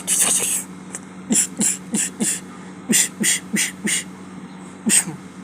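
A person making short, breathy 'bish' mouth noises at a cat, in two quick runs of about four, then once more near the end, over a steady low hum.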